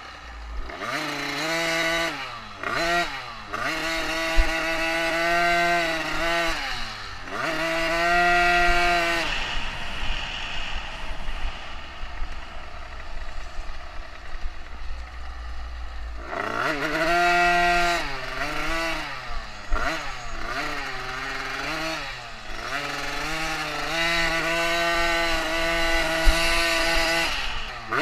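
Dirt bike engine under way, heard close from on the bike, its pitch climbing and dropping again and again as the throttle opens and shuts. About ten seconds in it eases off for several seconds, then revs up and pulls again.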